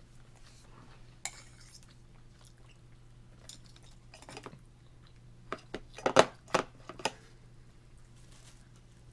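Toddler's metal fork clicking and knocking against a plastic high-chair tray and plate: a single click about a second in, then a quick run of several sharp clicks a little past the middle.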